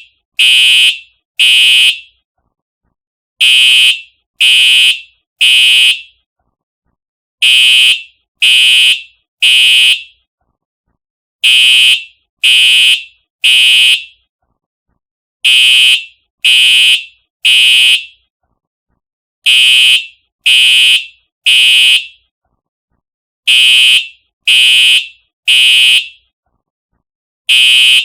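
Simplex TrueAlert fire alarm horn sounding the temporal-3 evacuation pattern: three short, shrill blasts about a second apart, then a pause of about a second and a half, the group repeating every four seconds.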